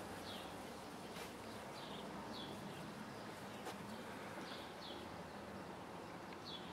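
A small bird chirping now and then: about six short, high chirps that slide down in pitch, faint over a steady outdoor hiss.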